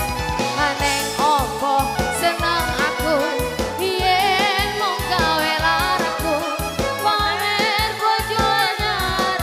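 Live band playing an upbeat song, with a singer carrying a wavering, vibrato melody over a steady drum beat.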